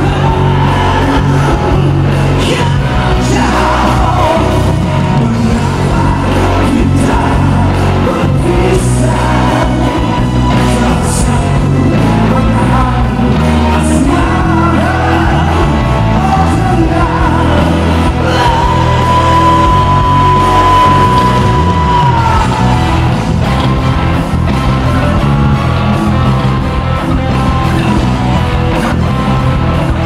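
Live rock band playing, with a male lead vocalist singing into a handheld microphone over drums. About two-thirds through, one long note is held steady for a few seconds and ends in a slide.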